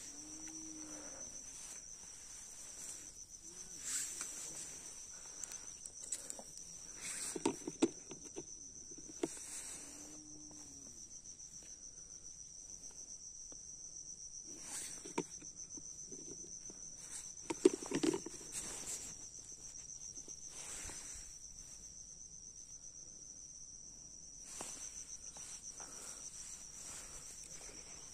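Steady high-pitched trilling of an insect chorus, crickets, running unbroken. Scattered short clicks and rustles of fishing tackle being handled, the loudest a sharp click just before the middle.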